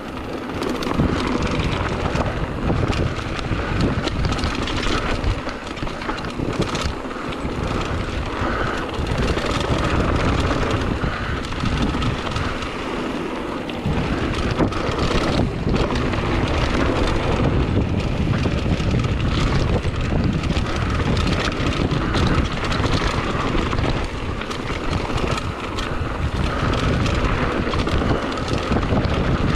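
Wind rushing over the camera microphone as a mountain bike descends a dirt forest trail at speed, with the tyres running over dirt and frequent knocks and rattles from the bike over bumps. The low rumble grows heavier about halfway through.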